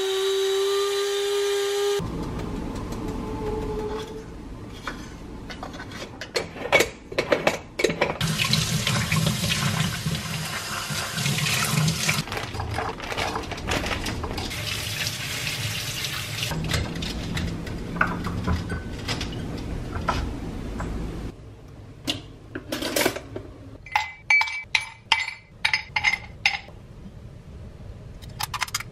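Electric blade coffee grinder whirring for about two seconds, its pitch rising as it spins up, then tap water running over cherries in a stainless colander. Near the end comes a run of sharp clinks of ice in a glass.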